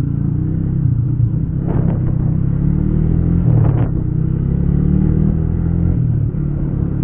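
Yamaha motorcycle engine running under way as the bike pulls along in town, picked up by a headset microphone inside the rider's helmet. The engine note rises and drops back a couple of times, and the sound is dull with no treble.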